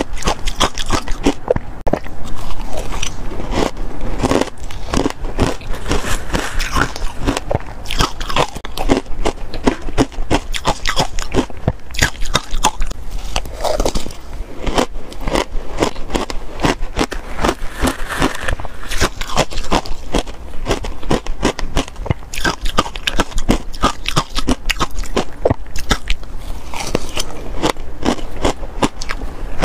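Ice being bitten and chewed in the mouth: a dense, continuous run of sharp crunches and cracks.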